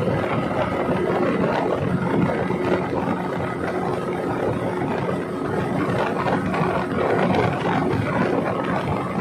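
Engine of a passenger speedboat running steadily at speed, a constant drone with the rush of water and wind over the hull.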